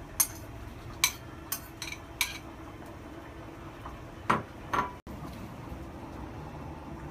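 Metal spoon clinking and tapping against ceramic bowls while noodles are scraped into the sauce and stirred: a run of sharp taps in the first couple of seconds, then two louder ringing clinks about four seconds in.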